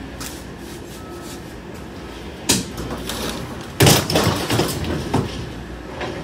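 Knocks and clatter of junk being handled in the empty cargo box of a U-Haul box truck: one sharp knock, then a quick run of loud bangs and rattles about four seconds in.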